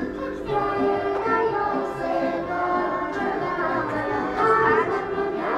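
A folk song with a child's singing voice over instrumental backing, the melody moving in long held notes.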